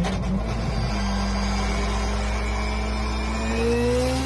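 Car engine accelerating, its pitch climbing slowly and steadily, with a brief break near the end like a gear change.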